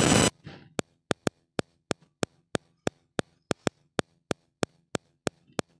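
A loud burst of noise stops abruptly just after the start. It is followed by a steady train of sharp ticks, about three a second, with a few extra ticks in between.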